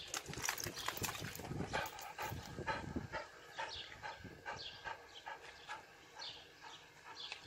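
A dog panting in quick, rhythmic breaths, about three a second, louder in the first three seconds and fainter after. Short high falling chirps repeat about once a second in the second half.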